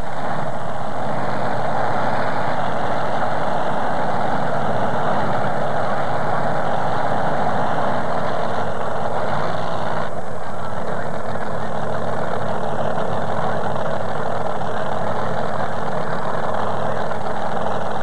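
Heavy modified pulling tractor's bank of supercharged engines idling steadily after its pull.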